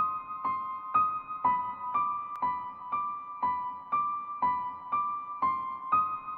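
Background music: a slow, repeating high electric-piano figure, about two notes a second.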